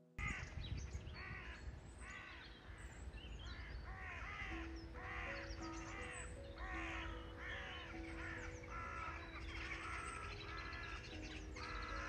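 A large flock of crows cawing, many harsh calls overlapping at about two a second, over soft background music with held notes.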